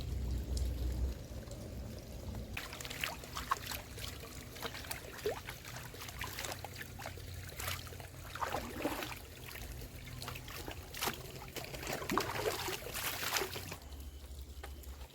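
Water pouring and trickling, with many small splashes and clicks from a few seconds in until near the end.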